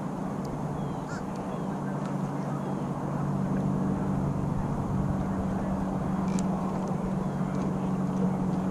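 Steady low hum of an idling motor, growing louder about three seconds in, with faint water and wind noise.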